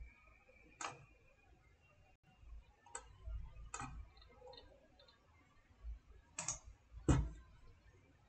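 Computer mouse clicking: about five sharp single clicks a second or two apart, the loudest one near the end.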